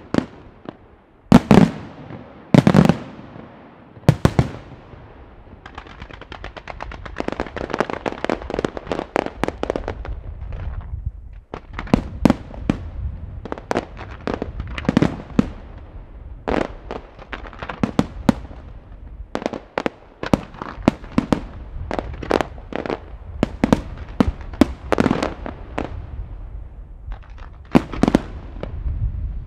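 Aerial firework shells launched from mortars and bursting in a professional display: two big booms in the first few seconds, a fast string of crackling reports a few seconds later, then frequent bursts over a steady low rumble.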